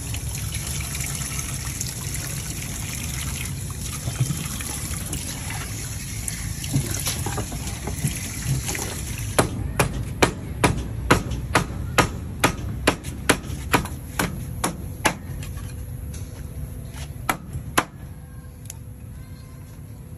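Tap water running into a steel sink while snake meat is rinsed by hand. About nine seconds in the water sound gives way to a stiff brush scrubbed over snake skin on a wooden chopping block, in sharp, even strokes about three a second, with a few more strokes near the end.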